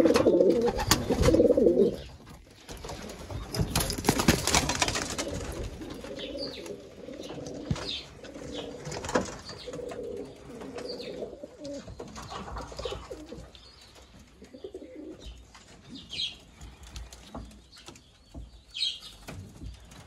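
Domestic pigeons cooing in a loft, with one loud, close coo in the first two seconds and softer cooing after it. A flutter of wings comes about four seconds in, and short high chirps come now and then.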